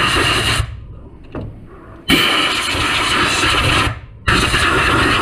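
Compressed-air blow gun hissing in sharp on-off bursts, blowing debris out of the engine's valleys. One blast cuts off about half a second in, another runs for a couple of seconds, and a third starts near the end.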